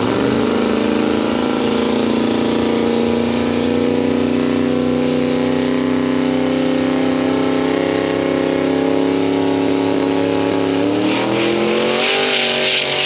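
Drag racing car's engine held at high, steady revs, then revving higher about eleven seconds in, with a hiss joining it near the end.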